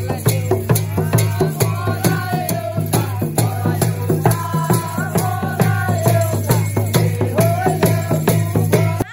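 Nepali folk dance music with a dhol barrel drum: fast, even drum and rattling strikes under a bending melody line, cutting off suddenly right at the end.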